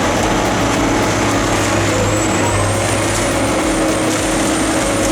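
A tracked Morbark wood chipper runs steadily with a dense, even noise and a low hum. A faint high whine rises slightly about two seconds in.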